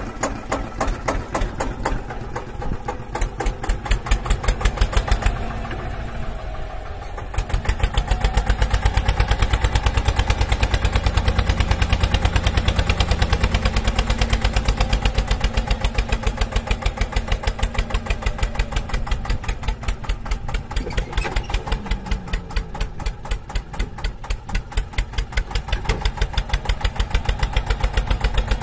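Diesel tractor engine sound running with a rapid, even chugging beat, louder from about seven seconds in.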